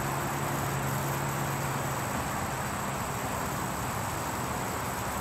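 Steady hiss of water spraying from the spinning arms of a Nelson traveling tractor sprinkler, with a faint low hum that fades out about two seconds in.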